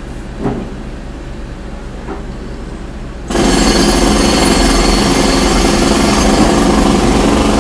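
A steady low drone, then about three seconds in a jackhammer starts up and hammers continuously and loudly.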